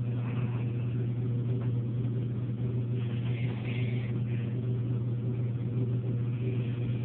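A steady low hum from an unseen machine, with faint scratches of a pencil sketching on paper, about three and six seconds in.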